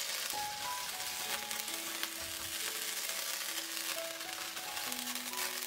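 Butter sizzling as it melts and foams in a hot nonstick frying pan, a steady hiss, with soft background music of slow single notes.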